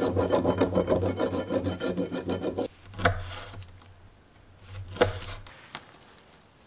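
A knife blade scraping the skin off a burdock root on a cutting board: rapid rasping strokes for about two and a half seconds, which are the loudest part. Then two single knife chops through dried jujube on the board, about two seconds apart.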